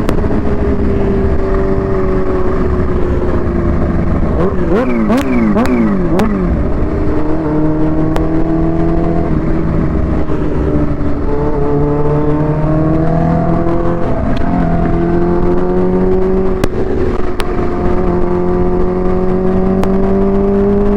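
Supercharged Kawasaki Ninja H2's inline-four engine through a Vandemon exhaust, under way. About five seconds in, the revs climb and drop several times in quick succession as it shifts up through the gears under hard acceleration. It then pulls on with its pitch slowly rising and falling, over a steady low wind rumble on the microphone.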